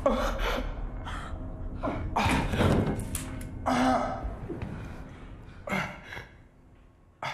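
Panicked gasps and strained, wordless cries from people struggling, in several short bursts that grow quieter toward the end.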